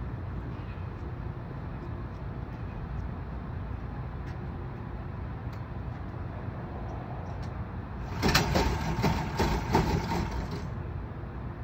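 Harbor Freight Predator 420cc engine being pull-started: a steady low rumble, then about eight seconds in a louder, noisier stretch of about two seconds.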